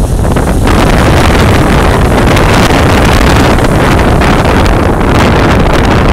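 Strong wind buffeting a small camera microphone: a loud, rushing wind roar with a heavy low rumble, swelling about a second in and staying loud.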